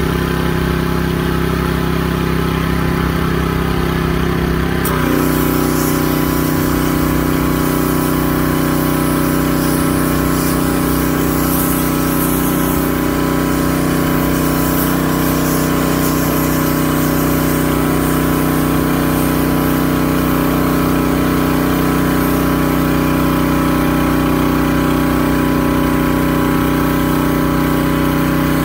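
Gas-engine pressure washer running steadily. About five seconds in, its note drops slightly and a hiss of water spray joins as the wand starts jetting onto the concrete.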